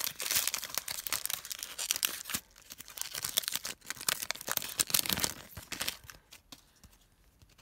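A foil Panini Prizm trading-card pack being torn open and crinkled. The crackling is densest in the first two seconds, then thins to scattered crinkles as the cards are drawn out, dying away near the end.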